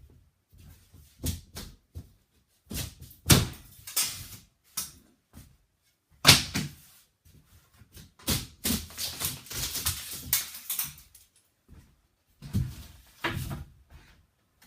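Old sheetrock being torn out by hand: irregular crunching, cracking and ripping of drywall breaking away in bursts, with knocks as pieces come loose or fall. The loudest tears come about three and six seconds in, and a longer stretch of crumbling and ripping runs from about eight to eleven seconds.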